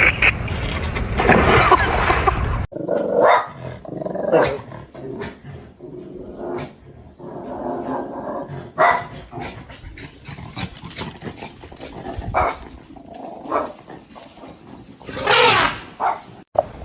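A dog growling and giving short, separate barks and yelps.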